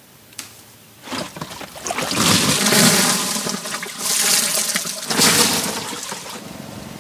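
Batter going into hot frying oil: a loud sizzle that begins about a second in, swells twice, then settles to a steady lower frying sizzle.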